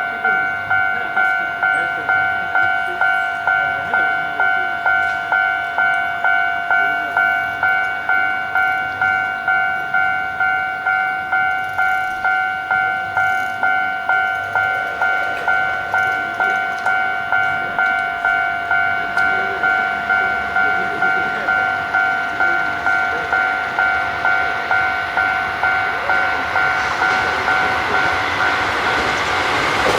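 Japanese level-crossing alarm ringing its electronic "kan-kan" tone, about two strikes a second at an even pace. Near the end a rushing noise swells as a train approaches the crossing.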